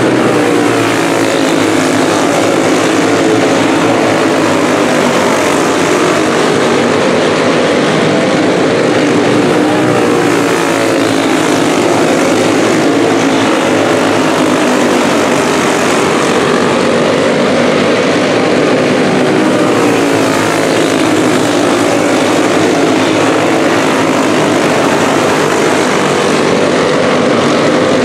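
Several junior champ karts racing together, their small engines running hard at high revs in a loud, continuous, overlapping drone whose pitches waver up and down.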